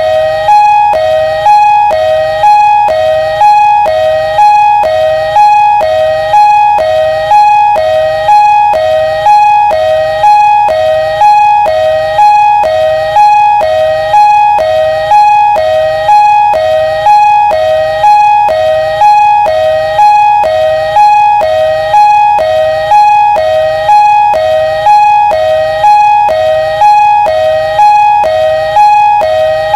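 Ambulance siren sounding a two-tone hi-lo pattern: a lower note and a higher note alternating about once a second, steady and unbroken.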